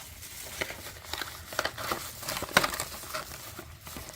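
Crinkling and rustling of packaging as new oil filters are unpacked, with irregular clicks and one sharp tap about two and a half seconds in.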